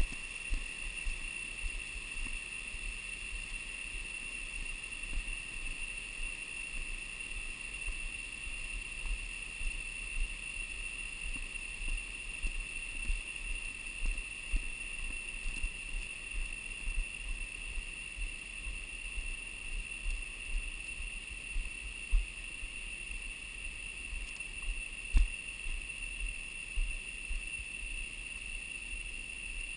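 Footsteps on a suspension bridge's walkway come through as irregular low thumps roughly every half second to second, with two sharper knocks a little past the two-thirds mark. A steady high-pitched drone runs under them.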